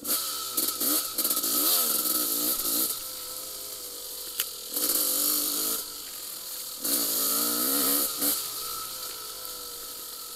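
Yamaha YZ250 single-cylinder two-stroke dirt bike engine revving under throttle on a trail, its pitch rising and falling in three bursts and dropping back to a quieter steady running between them.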